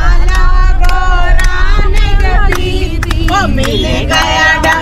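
Several women singing a song together inside a moving jeep, clapping along about twice a second, over the steady low rumble of the engine and road.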